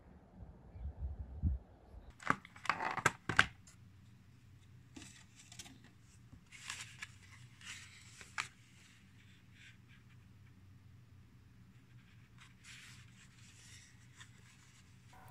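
Low rumbling thumps for the first two seconds. Then plastic food packaging crinkles and crackles, loudest from about two to three and a half seconds in, followed by softer scattered rustles and clicks as the plastic tray is handled.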